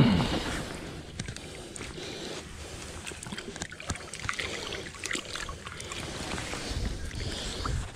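Rustling and scraping of clothing against a body-worn camera as a person shifts and crouches on shoreline rocks, with wind on the microphone. A sharp knock right at the start, then many small clicks and scrapes.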